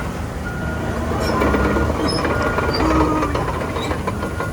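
Crawler bulldozer at work: a steady diesel engine note under clanking steel tracks, with a few short squeals, mostly between one and three seconds in.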